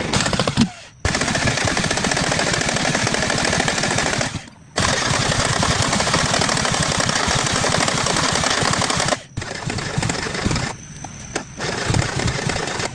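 Car engine running loud and rough, a fast string of sharp firing pulses. It breaks off suddenly twice and turns uneven near the end.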